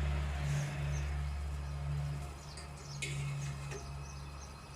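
A steady low hum, with faint high bird chirps now and then.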